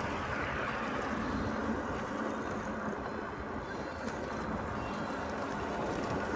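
Steady city street noise heard while riding a bicycle, an even rush with no distinct events.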